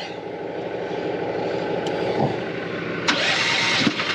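Small gasoline pony motor on an RGN trailer's gooseneck starting and running, the engine that powers the hydraulics for lowering and detaching the neck. There is a sharp click about three seconds in.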